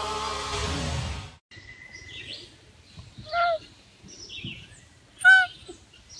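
Live pop music with singing, cutting off about a second in. Then a Canada lynx gives two short, high mews about two seconds apart, each bending up and down in pitch, the second louder, with fainter high chirps between.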